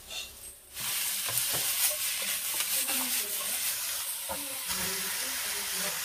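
Food going into a hot oiled pan for bánh xèo and sizzling: the hiss starts suddenly about a second in and holds steady, with a few light clicks of stirring.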